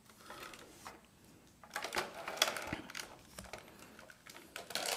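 Foil booster-pack wrapper crinkling and being torn open by hand: a run of quick crackles and rips, busiest about two seconds in.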